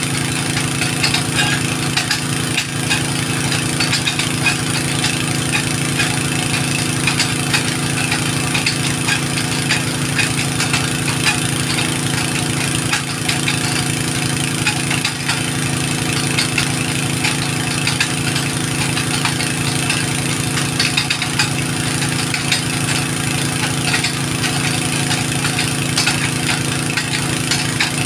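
An engine running at a steady, unchanging speed.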